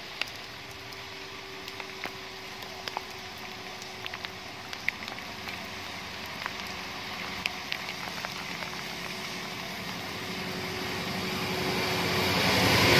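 Steady rain, with scattered drops ticking close by. A bus approaches on the wet road and grows louder over the last few seconds.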